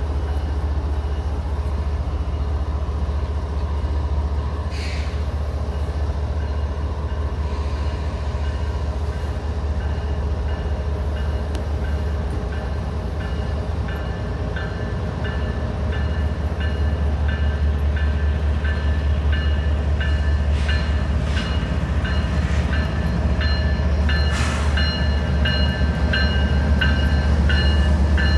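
Diesel locomotives: a steady low rumble, and a freight train led by GE ES44AH units that approaches and grows louder over the last dozen seconds. From about halfway a high ringing pulses at a regular pace.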